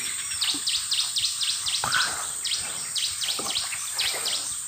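Runs of short, high chirps from wildlife, about four a second, in several groups, with one rising call about two seconds in, over a steady high-pitched hiss.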